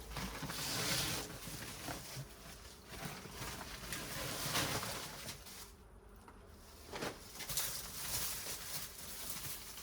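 Hands rummaging through potting soil and pulling weeds in a potato grow bag: irregular rustling and scraping with small clicks, quieter for a moment about six seconds in.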